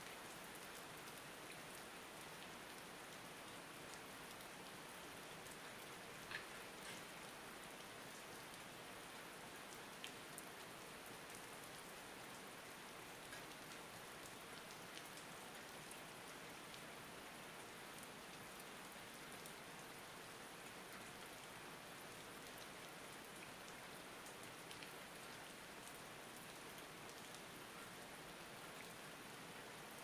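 Steady rain falling, a faint, even hiss with a few louder single drops landing now and then.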